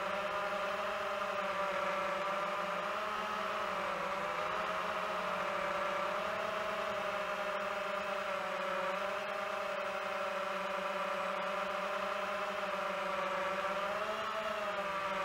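DJI FPV drone's motors and propellers whining steadily in flight, the pitch wavering slightly as it holds position.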